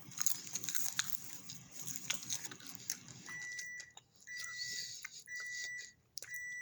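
Scattered clicks and crackles, then an electronic appliance beeper sounding four long, even beeps about once a second.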